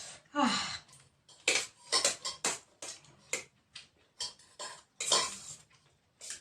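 Irregular clinks and knocks of dishes and cutlery during a meal, after a short voiced 'oh' of discomfort at the chilli heat just after the start.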